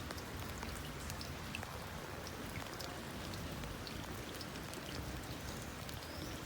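Steady rain falling, a continuous hiss with scattered sharp ticks of single drops striking nearby surfaces.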